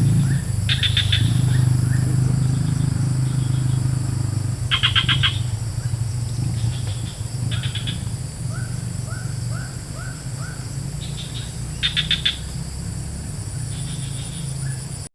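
Birds calling outdoors: repeated short rattling trills and runs of quick rising chirps, over a steady low engine hum. The sound cuts off abruptly at the end.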